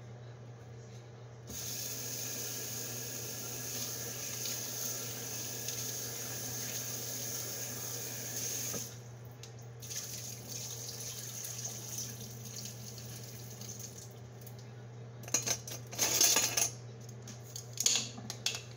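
Water running from a kitchen tap, turned on about a second and a half in and off near the middle, then a louder rush of water for a second or so near the end, followed by a few sharp clatters. A steady low hum sits under it all.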